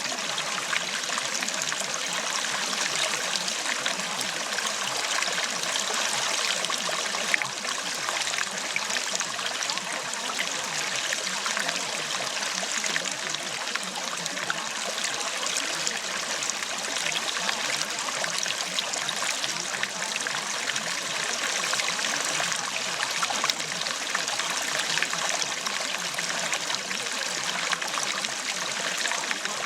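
Steady running water, like a flowing stream, an even rushing with no change in level.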